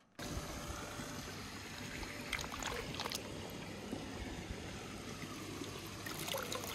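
Steady, quiet background noise with a few faint clicks about two and three seconds in.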